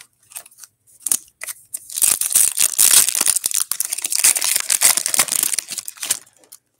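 A foil trading-card pack wrapper being torn open and crinkled: a few light clicks of card handling, then about four seconds of dense crackling that stops shortly before the end.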